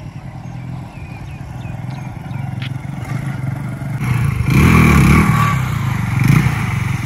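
TVS Star City 100 cc motorcycle's single-cylinder engine running at low revs, then revved hard about four and a half seconds in as the bike is lifted into a wheelie, with a second sharp rev a little later.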